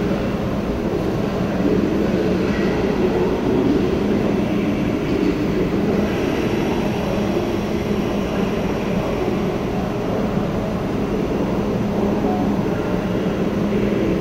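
ICE high-speed electric train standing at the platform, giving off a steady low hum.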